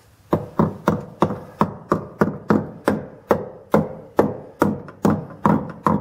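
A hammer tapping a steel retaining clip into place on a brake hose bracket, with quick repeated strikes about three to four a second, each ringing briefly.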